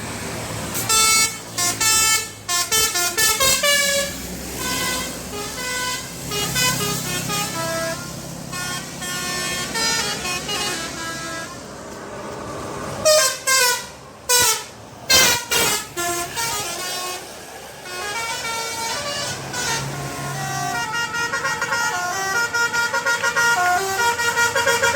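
Bus 'telolet' horn: a set of multi-tone air horns playing short melodic phrases, note after note at changing pitches. A few loud short blasts come midway, and a run of quickly repeated notes near the end.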